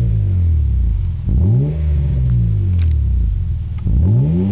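Acura Legend's V6 revving through a cat-back exhaust with a Skunk2 muffler. It is free-revving in blips: a rev dies away at the start, a second rises and falls about a second and a half in, and a third begins near the end.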